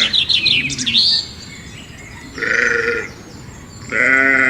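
Sheep bleating: two short baas, one about halfway through and another starting near the end. A quick series of high chirps comes before them in the first second.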